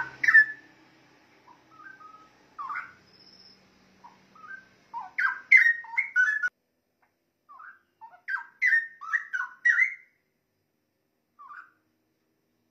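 Straw-headed bulbul (cucak rowo) singing: rich, liquid whistled phrases that glide up and down, delivered in short bursts with pauses between them, with the fullest bursts about five seconds and nine seconds in.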